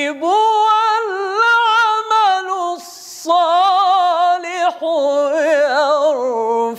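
A man chanting Quran verses in the melodic mujawwad style: a solo, unaccompanied voice in three long phrases, each held on drawn-out notes with wavering ornaments.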